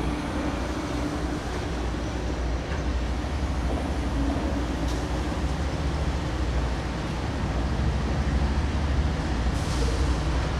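Norfolk Southern diesel locomotive approaching, a steady low rumble that slowly grows louder. A short hiss comes near the end.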